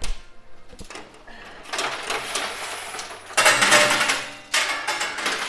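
Coins clattering and sliding in a coin pusher arcade machine, with the pusher mechanism rattling. The clatter starts a little under two seconds in and gets louder about halfway through.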